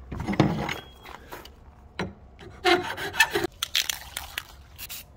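Irregular rubbing and scraping from hand work on the refrigerator's front, coming in uneven strokes, loudest in the first second.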